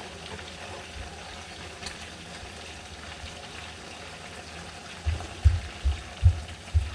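A steady hiss, with about five dull low thumps in quick succession near the end.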